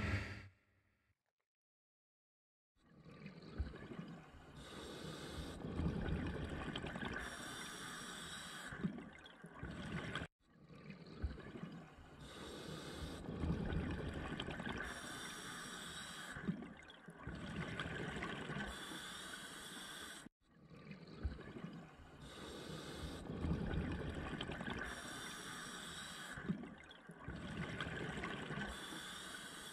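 Scuba diver breathing through a regulator underwater: hissing inhalations alternate with gurgling rushes of exhaled bubbles, breath after breath, in a cycle that repeats about every ten seconds. Before that, in the first second, comes the sound of a boat running over the water, then a short silence.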